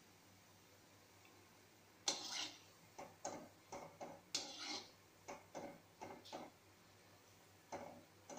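A perforated metal skimmer knocking and scraping against an aluminium kadai while frying gulab jamun are stirred in oil. After a quiet start come a dozen or so irregular clicks and short scrapes, the loudest about two seconds in.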